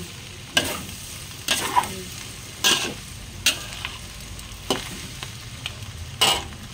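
Metal spatula scraping and knocking against a stainless steel wok during stir-frying, about seven sharp scrapes at uneven intervals over a steady sizzle. The food is sticking and browning on the bottom of the pan.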